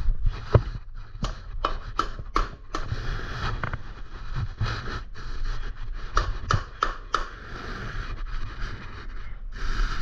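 Irregular clicks, knocks and scraping of hands working on metal bike parts, with spells of louder rustling noise between them.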